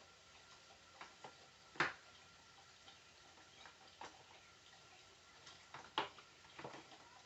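Scattered light clicks and knocks of tools and parts being handled during ATV disassembly, two of them louder, about two seconds and six seconds in.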